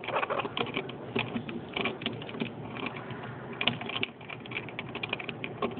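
A Hahn's macaw's beak picking and gnawing at the shock and chassis parts of a Losi 22 RC buggy: a quick, irregular run of small clicks and taps.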